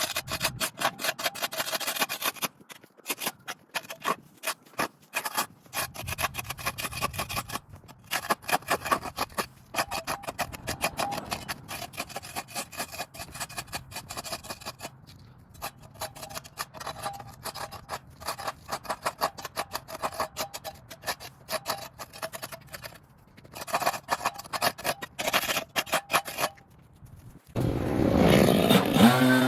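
Rapid, irregular scraping and rubbing, with short breaks throughout.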